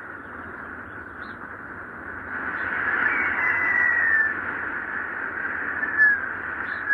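Strong wind whistling: a steady rushing hiss that swells about two seconds in, with high whistling tones that slide slightly down in pitch, and two short, louder gusts near the end.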